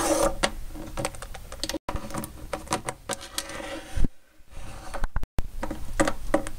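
Plastic toy figurines clicking and tapping on a hard tabletop as they are moved by hand, in a quick, irregular run of light knocks. The sound breaks off twice in abrupt cuts.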